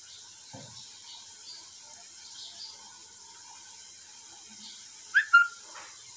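Gram-flour pakoras deep-frying in hot oil in a kadhai on a low flame, a steady soft sizzle. About five seconds in, a short high-pitched call sounds twice in quick succession, much louder than the frying.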